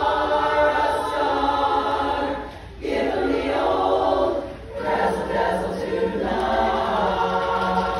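Women's chorus singing together in harmony, held chords broken by two short pauses, about three and five seconds in.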